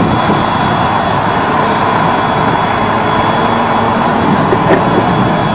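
Automatic plastic liner welder running steadily along a geomembrane seam: an even machine rush with a steady high whine, without let-up.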